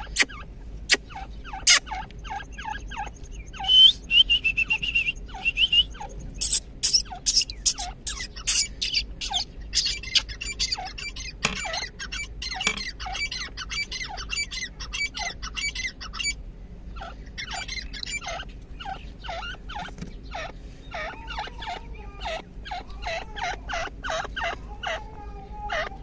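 Grey francolins calling: a long run of short, sharp call notes, about three or four a second, with a higher held note about four seconds in.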